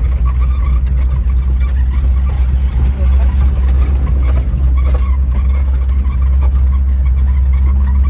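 Volkswagen Kombi van's engine pulling in first gear, heard from inside the cab as a steady low rumble, its note rising slightly near the end as the van gathers speed.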